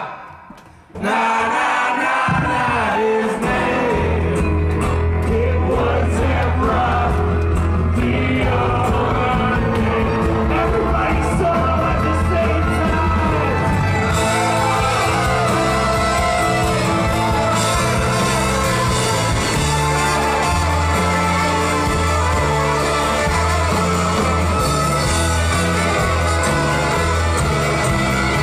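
Live band playing a song with singing, loud in a bar room. The music cuts out sharply for about a second at the start, then the full band comes back in with a strong low bass line.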